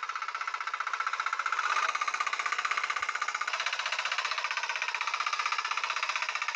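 Small engine of a walk-behind mini tiller (hand tractor) running steadily under load while tilling soil, with a rapid, even firing beat.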